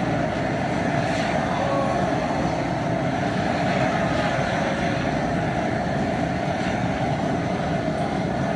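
Propane jet burner under a crawfish boiling pot, burning with a steady rushing noise while the pot heats toward the boil.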